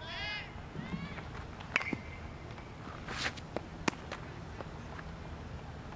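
A baseball pitch being thrown: the pitcher's footsteps and a two-seam fastball popping into the catcher's mitt. It comes through as a few sharp knocks and pops over a quiet outdoor background, with a brief high squeak at the start.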